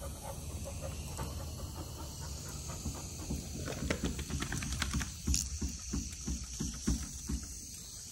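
Young Deutsch Drahthaar (German wirehaired pointer) panting in quick, even breaths, about three a second, clearest in the second half.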